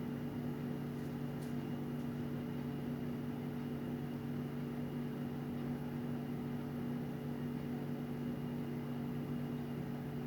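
Steady low hum made of a few fixed tones over a soft hiss, unchanging throughout.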